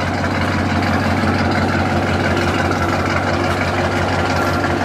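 Dodge Charger's engine idling steadily, its exhaust quiet.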